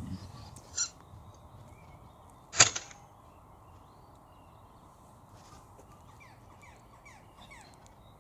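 A single shot from a Daystate Wolverine R .177 PCP air rifle at 12 ft-lb: one sharp crack about two and a half seconds in, with a smaller sharp click shortly before it.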